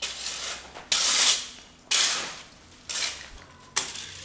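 Plastic fan rake dragged through freshly cut grass clippings, about one stroke a second: five rustling scrapes, each starting sharply and fading out.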